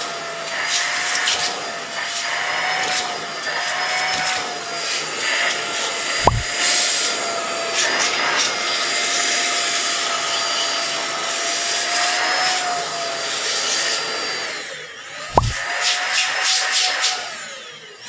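Deerma DX700 handheld vacuum cleaner running with its crevice nozzle: a steady rush of air under a thin, slightly wavering motor whine. There are two short knocks, about six seconds in and again around fifteen seconds. The sound dips just before the second knock, comes back, and falls away near the end.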